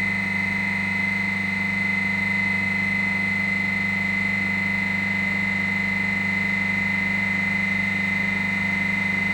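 Remanufactured Dorin H2500CC semi-hermetic piston compressor running steadily under test: a constant deep hum with a steady high tone over it.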